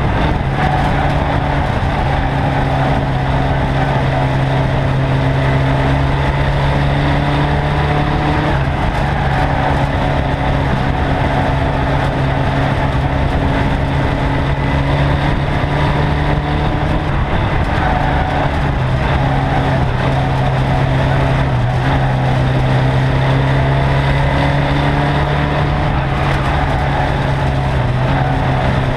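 Onboard sound of a ministox racing Mini's engine running hard at fairly steady high revs, its pitch dipping slightly now and then, over continuous road and wind noise.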